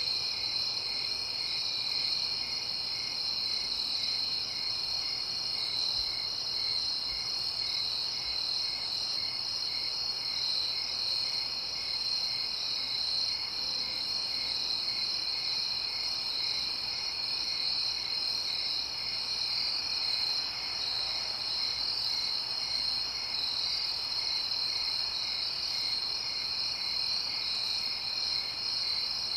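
Night-time chorus of crickets chirping: a continuous high-pitched trill, with a softer regular chirp about twice a second beneath it.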